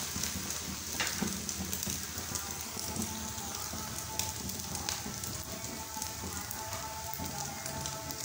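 Two egg-dipped sweet bread slices frying in oil in a nonstick pan: a steady sizzle with occasional sharp crackles.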